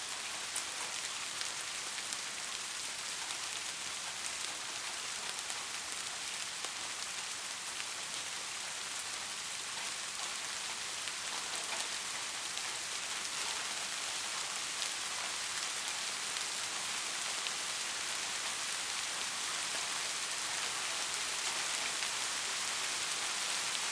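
Steady rain falling on a surface, a dense even hiss with scattered individual drop ticks.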